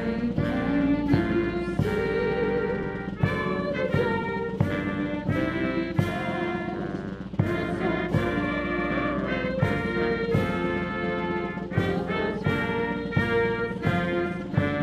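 Military brass band playing a slow, stately piece with brass chords and regular drum strikes. It is played as the national anthem during a formal salute.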